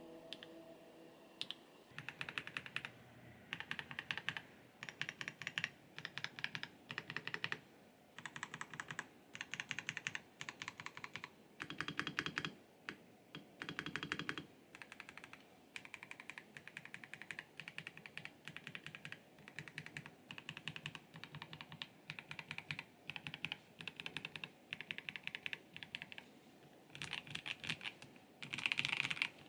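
Typing on a MelGeek Mojo84 Plastic Advance mechanical keyboard fitted with Kailh Custom Box Plastic switches: short runs of rapid keystrokes with brief pauses between, a soft clacky "kotokoto" typing sound.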